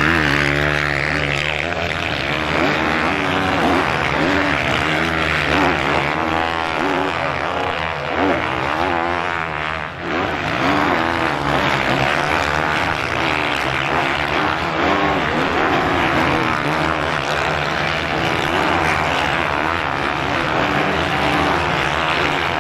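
Many motocross bikes running at once in a dense engine buzz, with single bikes revving up and down as they pass.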